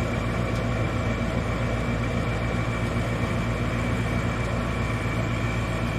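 Gas furnace running just after being switched on: a steady motor hum with a faint, constant high whine above it.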